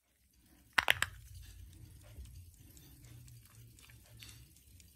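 Snap-on metal caseback of a Westclox pocket watch being pried at the rim: three sharp metal clicks in quick succession about a second in, then faint scattered clicks and handling.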